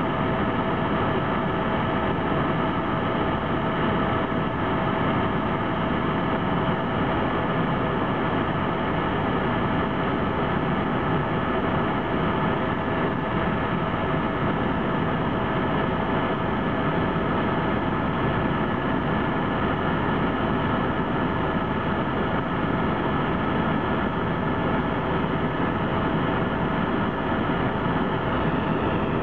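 Helicopter in steady flight heard from inside the cabin: a constant dense drone of engine and rotor noise with a steady high whine on top, unchanging throughout.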